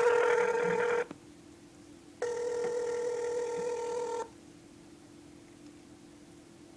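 Telephone ringback tone heard through a phone's speaker: a steady buzzing tone about two seconds long, coming back after about four seconds of quiet, with a shorter first ring at the start. It is the line ringing while the call waits to be answered.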